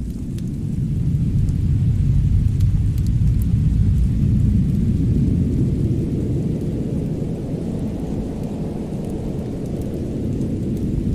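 A deep, continuous rumble that swells about a second in, eases off, then builds again near the end, with a few faint crackles above it.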